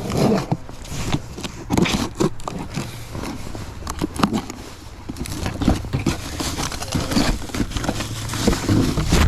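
Light bar mounting brackets and small parts being handled and unpacked: irregular clicks and knocks with rustling of packaging.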